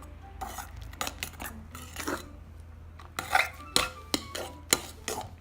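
A utensil stirring slime in a bowl, knocking and scraping against the bowl in irregular clicks, with a few sharper knocks in the second half.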